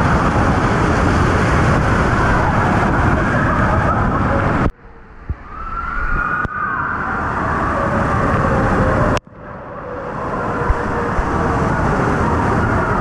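Waterfall pouring from a cave roof into a pool, a steady heavy rush of falling water. The rush drops away abruptly twice, about five and nine seconds in, and swells back each time.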